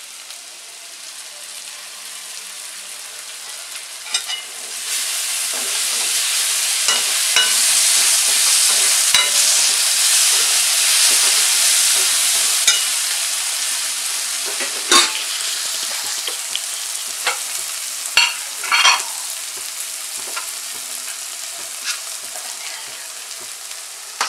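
Sweet corn and chopped vegetables sizzling in ghee in a kadai, with chilli sauce just added, stirred with a perforated metal spatula that clicks and scrapes against the pan now and then. The sizzle swells about five seconds in and slowly eases off.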